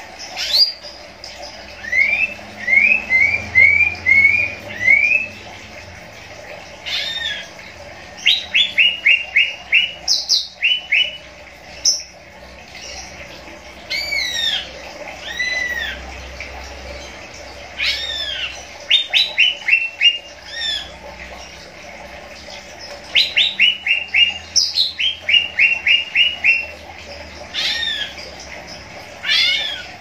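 Caged cucak ijo (green leafbird) calling in short bursts every few seconds: quick runs of five or six sharp rising chirps, mixed with single arching whistled notes.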